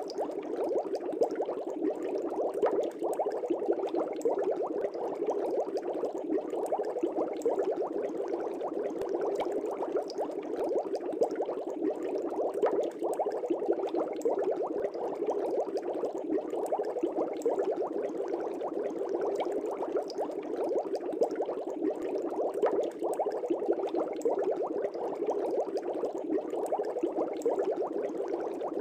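Aquarium air bubbles rising through a fish tank, a steady, dense bubbling made of many tiny pops.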